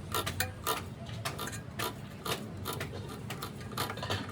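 Irregular light tapping or clicking, about two sharp taps a second, over a steady low hum.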